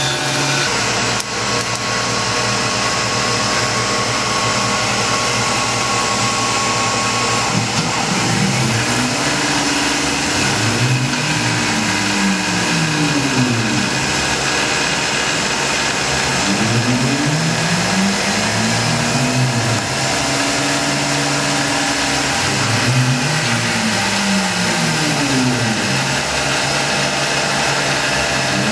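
Tormach PCNC 1100 CNC mill machining aluminium under flood coolant: a steady spindle and coolant-spray noise. From about eight seconds in, the axis stepper motors add a whine that rises and falls in pitch over and over, roughly every four seconds, as the tool is driven round in circles chamfering the bores.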